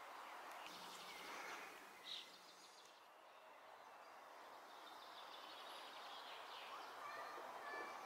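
Faint outdoor ambience with distant small birds chirping now and then, and one brief, clearer chirp about two seconds in.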